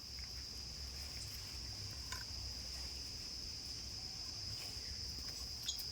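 Crickets chirring in one continuous high buzz, over a low rumble.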